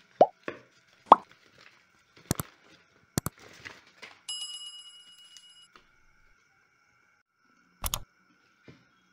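Cylindrical metal watch tin being handled: a series of sharp taps and clicks, a brief rustle of paper packaging, and about four seconds in a clear metallic ring lasting over a second as the tin sits on the table. A double knock comes near the end as the tin is picked up and turned over.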